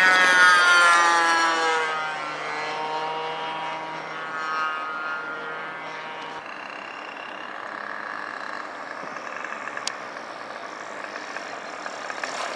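Radio-controlled aerobatic model plane's motor and propeller running in flight, its pitch sliding as the plane passes overhead. The sound fades over the first few seconds and stays low as the plane is throttled back to land.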